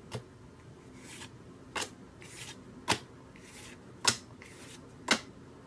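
Disney Lorcana trading cards being flipped and laid down one at a time: five sharp card snaps about a second apart, with softer sliding swishes between them.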